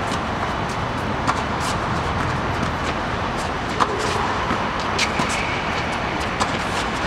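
Tennis balls struck by rackets and bouncing on the court: several sharp pops spread through, about one every second or so, over a steady background rumble.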